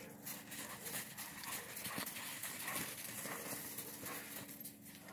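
Dogs scrambling about on snow: paws crunching and scuffing in quick, irregular footfalls.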